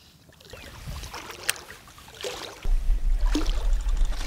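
A single sharp click, then from a little past halfway a steady low rumble of water washing around a half-submerged action camera at the surface.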